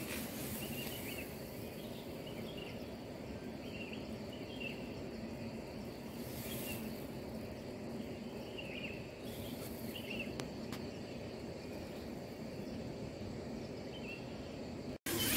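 Steady rain on a nylon tent, heard from inside the tent. Faint short animal chirps come through about once a second, with a brief rustle of handling about halfway through.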